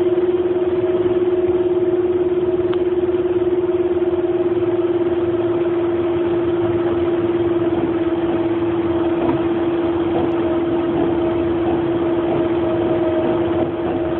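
Running noise inside a train car: a steady rumble with a constant humming tone that holds one pitch.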